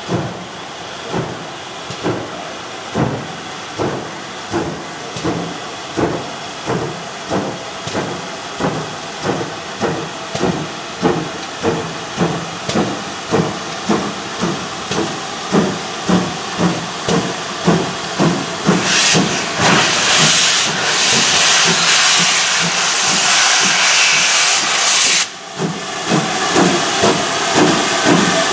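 Steam locomotive working hard as it pulls away: evenly spaced exhaust chuffs that quicken from a little over one a second to about two and a half a second and grow louder. About two-thirds of the way in, a loud hiss of escaping steam sounds over the beats for about six seconds and then stops abruptly.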